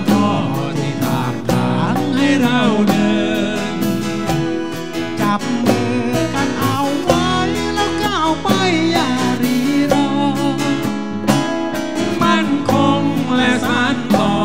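A live band playing a song: acoustic guitar over a drum kit, with a melody line that bends in pitch.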